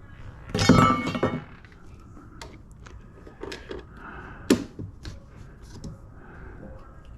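Workshop pieces and tools being handled and set down: a loud clattering rattle about a second in, then a few scattered sharp knocks and clicks, one louder near the middle.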